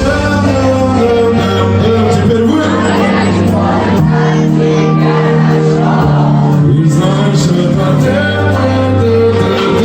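Live concert music over a loud PA: a heavy sustained bass line and held chords, with a voice singing or rapping over it and some crowd noise.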